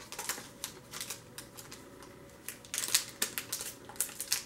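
Fingers picking at and peeling the clear plastic wrapping off a small cardboard box: a run of light crackles and clicks, busiest about three seconds in.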